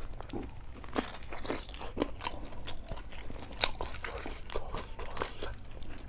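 A man biting and chewing pieces of chicken curry held in his hand, close to the microphone: many short crunching clicks, with sharper bites about a second in and again between three and four seconds in.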